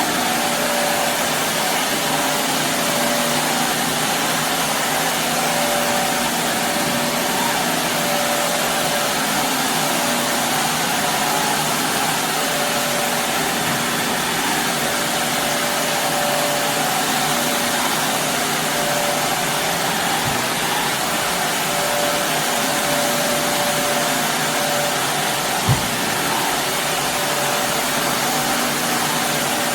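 Shark Navigator Lift-Away upright vacuum (ZU503AMZ) running on carpet, a steady loud rushing of the suction motor with a faint hum that comes and goes. A single short knock near the end.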